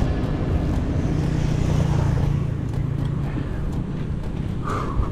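A motor vehicle's engine passing close by on the road, strongest in the first couple of seconds and then fading, over a steady low rumble of wind and road noise.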